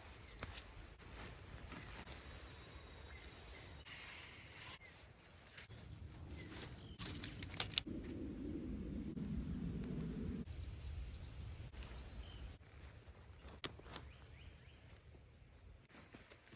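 Camping gear being handled while camp is set up: scattered metallic clicks and jangles with some rustling, the sharpest clicks about seven to eight seconds in, followed by a low rushing noise for about two seconds.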